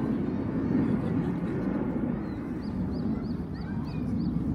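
Low rumble of Blue Impulse Kawasaki T-4 jets receding overhead, slowly fading. In the second half a small bird gives a run of short high chirps, about three a second.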